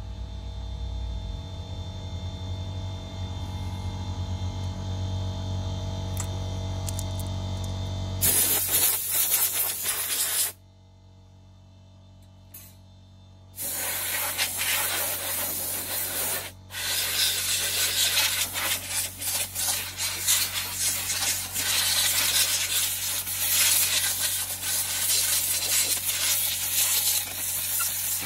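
A steady hum for the first eight seconds or so, then compressed air from a hose nozzle hissing in long blasts as dust is blown out of a PC case. The air stops for about three seconds in the middle, then starts again and keeps going in fluctuating blasts.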